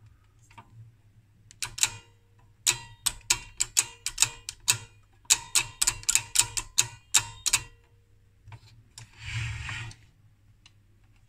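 Metal rotary step switch of a vintage Rohde & Schwarz 600-ohm attenuator clicking from step to step as its contact arm is turned by hand: a run of sharp clicks, about three or four a second, in two runs with a short break about five seconds in. A brief hiss follows near the end.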